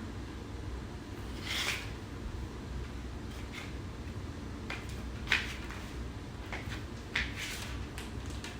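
Jelly flip-flops squishing and slapping against bare feet: a soft squelch about one and a half seconds in, then a few scattered sharp slaps, the two loudest about five and seven seconds in, over a steady low hum.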